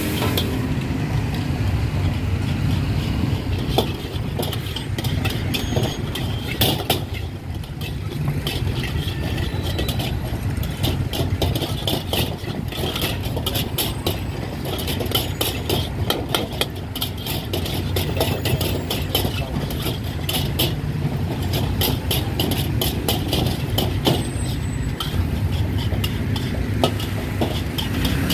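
Metal spatula and ladle scraping and clanking against a steel wok as egg and rice are stir-fried, many quick clicks over a steady low rumble.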